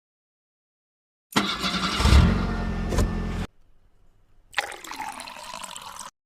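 Sound effect of a car engine starting, cutting off abruptly, followed about a second later by a second, quieter sound effect.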